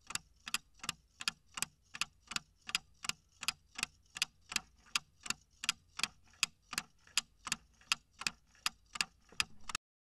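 Clock-ticking sound effect for a quiz countdown timer: sharp, evenly spaced ticks, a little under three a second, stopping just before the timer reaches zero.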